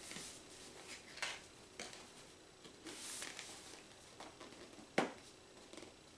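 Fingers picking and scraping at the edge of a cardboard tablet box, faint scratches and light taps with a brief rustling hiss about three seconds in and a sharper click about five seconds in.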